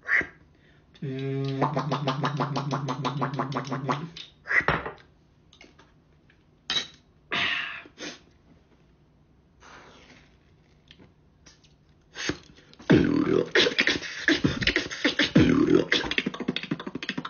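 A man beatboxing. It opens with a buzzing bass tone pulsed very fast for about three seconds, then scattered vocal clicks and breaths, and near the end a dense, fast run of vocal percussion.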